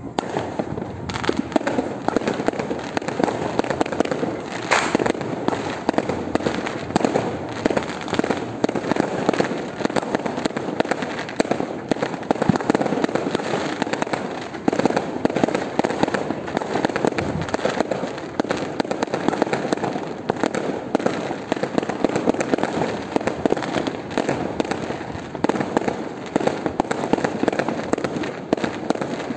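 New Year fireworks and firecrackers going off all around at once: a dense, continuous stream of overlapping bangs and crackles, with one sharper bang about five seconds in.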